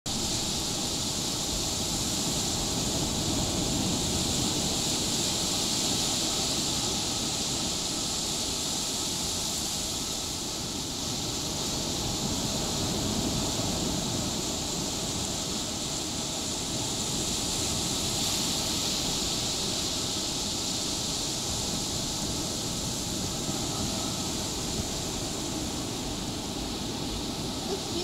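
Ocean surf breaking and washing up a beach: a steady rushing wash that swells and eases every few seconds.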